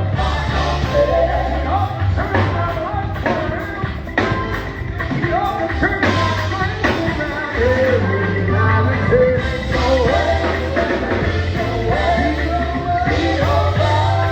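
Band music with a voice singing a melody over a strong, steady bass line and occasional drum hits.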